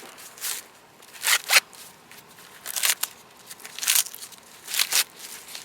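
Sweet corn husks being pulled back from an ear by hand: a series of short, papery tearing and crackling rips, one after another every half second to a second.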